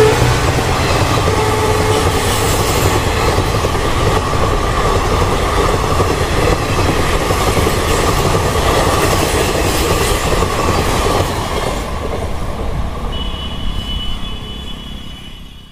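Indian Railways passenger coaches rolling past at speed: a steady rumble and rattle of wheels on the rails. A thin high tone joins near the end, and the sound then fades out.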